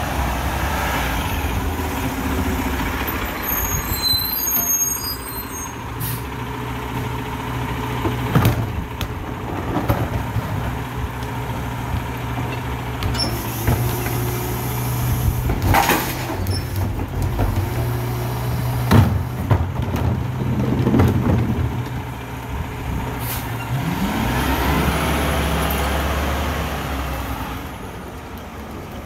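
Diesel engine of a Mack rear-loader garbage truck idling with a steady hum while recycling carts are knocked against the rear hopper, with a sharp hiss of the air brakes. About 24 s in, the engine rises in pitch as the truck pulls away.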